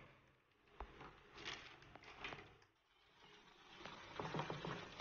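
Wire whisk stirring thick semolina and gram-flour batter in a stainless steel bowl, mixing in just-added baking soda: faint scraping and light clicks of wire on metal in short bouts, the longest near the end.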